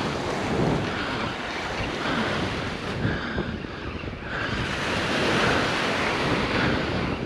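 Small surf waves washing onto a sandy beach, with wind buffeting the microphone. The wash swells louder a little after four seconds in.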